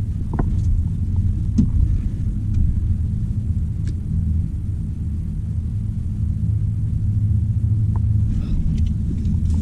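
Wind buffeting the climber's camera microphone as a steady low rumble, with a few faint clicks.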